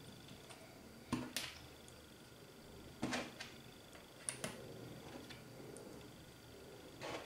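Small plastic counters being set down on a paper sheet on a table: a few light clicks and taps in small clusters, about a second in, around three seconds, near four and a half seconds, and again near the end.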